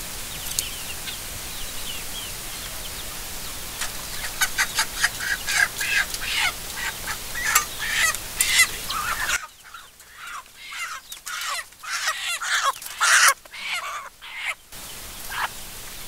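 A flock of domestic chickens calling: many short clucks and squawks, most frequent through the middle of the stretch.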